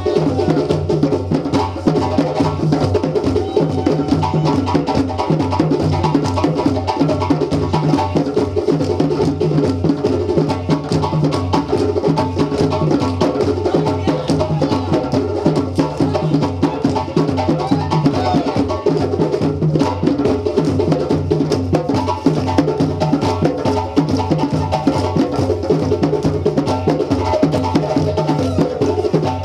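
West African djembe drum ensemble playing a fast, steady traditional Malinke rhythm, with dense interlocking hand-drum strokes over a regular low beat.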